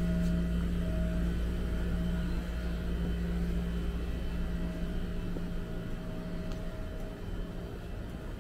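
A motor running steadily, with a low rumble and a steady pitched hum that grows quieter after about six seconds.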